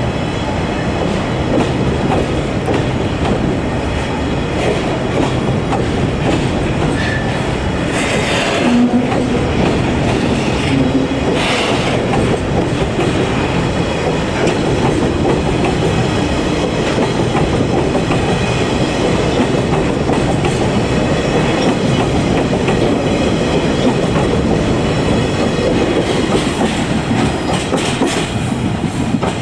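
Freight train of oil tank wagons rolling past at close range, its wheels clattering steadily over the rail joints, with two brief high-pitched sounds about 8 and 11 seconds in. The last wagon passes near the end.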